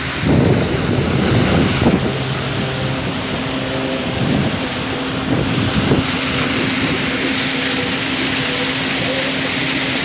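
Small motorboat's engine running steadily with a low hum, with wind buffeting the microphone, strongest in the first couple of seconds.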